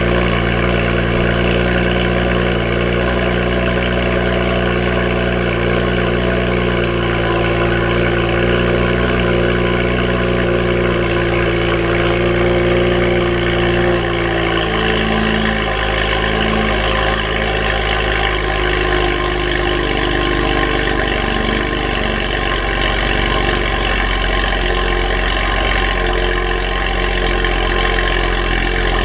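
2007 BMW 335i's twin-turbo inline-six idling loudly on a cold start with catless downpipes fitted. The idle note changes about halfway through.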